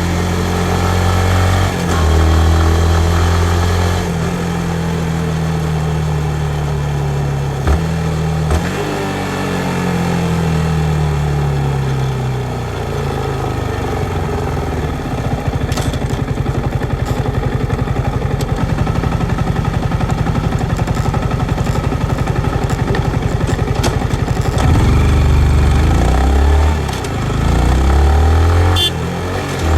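2019 Yamaha MT-15's single-cylinder engine under riding load: it revs up through the gears, then runs down in pitch as the bike slows. It settles into a steady, even pulse at idle for several seconds, then revs up again in steps as the bike pulls away.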